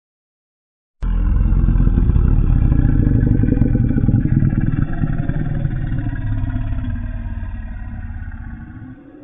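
Custom Godzilla monster vocalisation sound effect: a deep, rough growl that starts suddenly about a second in, holds for several seconds, then slowly fades before cutting off.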